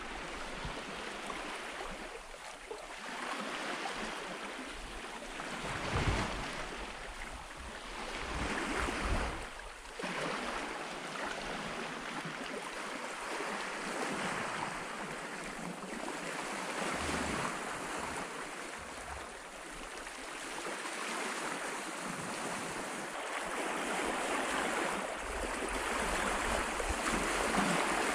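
Water rushing and splashing along the hull of a Hallberg-Rassy 54 sailboat under way, swelling and easing every few seconds, with wind now and then buffeting the microphone.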